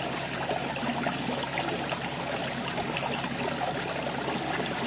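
Water splashing and trickling steadily into a pond.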